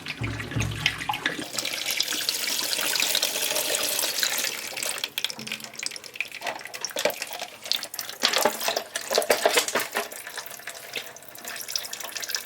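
Water draining and splashing out of a tankless water heater's drain valve, a steady rush strongest in the first half. A run of sharp knocks and clicks follows in the second half, with a low thump at the very start.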